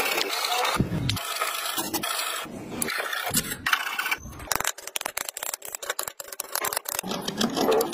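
Hand saw cutting through a hardwood block in strokes, then a chisel working a mortise-and-tenon joint, with many short sharp clicks.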